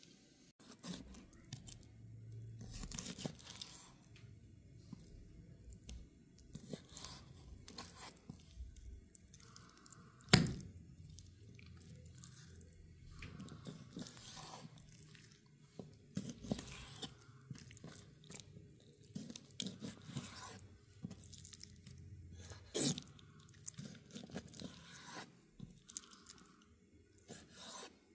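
Knife slicing raw boneless chicken breast on a wooden cutting board: soft, tearing cuts through the meat with irregular taps of the blade on the board, one sharp knock about a third of the way in.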